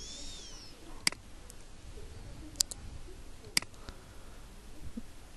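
Computer mouse clicking: three sharp single clicks spaced a second or so apart, over faint room hiss. A brief high chirp sounds at the very start.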